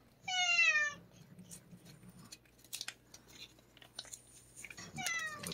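A cat meows twice, once just after the start and again near the end, each call about half a second long and falling in pitch. Faint clicks and rustles come in between.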